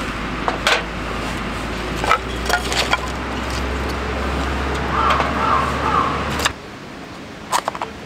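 Wood campfire burning: a steady rushing noise with sharp pops and cracks from the burning wood, several in the first three seconds and another pair near the end. The rushing stops abruptly about six and a half seconds in, leaving quieter crackling.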